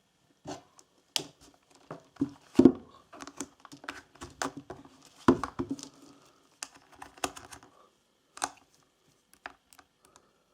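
Fluke 87V digital multimeter being handled and tried out: irregular plastic clicks and knocks, with two heavier knocks about two and a half and five seconds in.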